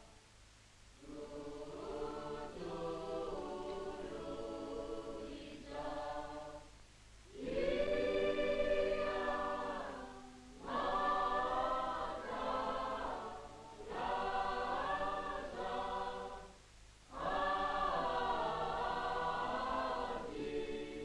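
A choir singing, in sustained phrases a few seconds long with short breaks between them.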